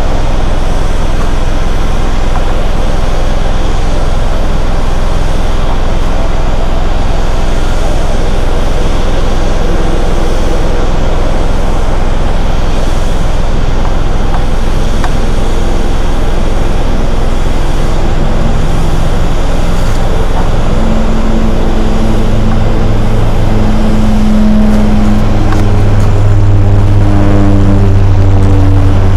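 Steady low rumble, joined from about 18 seconds in by the drone of a Rex turboprop airliner's propellers, growing louder as it climbs closer.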